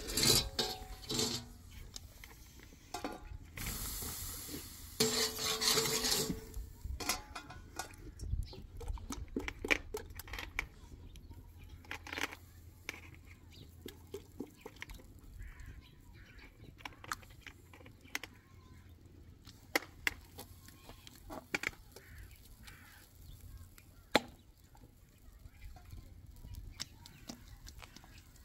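Scattered clinks and knocks of pots, dishes and utensils as food is prepared, with a louder, noisier stretch about four to six seconds in.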